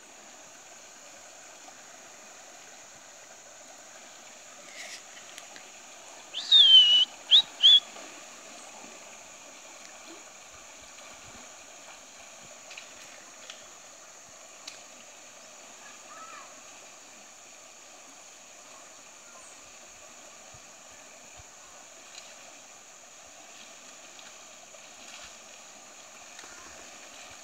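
Steady hiss of an outdoor river scene. About six seconds in, a loud, shrill whistled call rings out as three sharp notes within under two seconds, the first bending in pitch.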